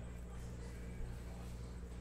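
Steady low electrical hum with the faint rustle of glossy trading cards being handled and slid against each other, and a soft bump about a second in.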